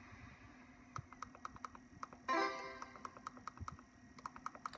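Pig-themed video slot machine's bonus-round sound effects: runs of rapid electronic ticks, about ten a second, with a short chime jingle a little over two seconds in.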